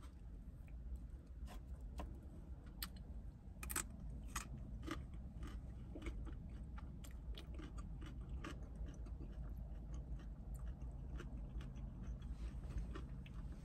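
A person chewing cooked green beans close to the microphone, with irregular short crunches and wet mouth clicks over a low steady hum.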